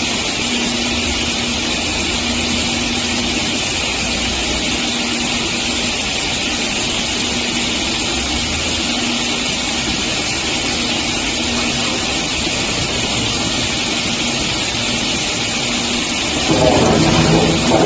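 Industrial multi-head wood cut-off saw machine running with a steady, loud hiss-like whir. Near the end a louder pitched whine lasts about a second and a half.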